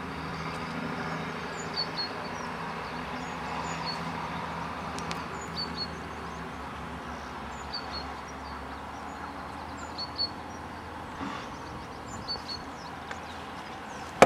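Steady low hum of a distant engine, thinning out in the second half, with a small bird repeating a short high chirp about once a second.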